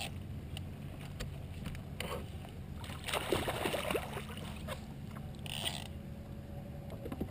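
A hooked salmon thrashing and splashing at the water's surface beside a kayak as it is brought to the net, with a flurry of splashes about three seconds in, over a steady low rumble.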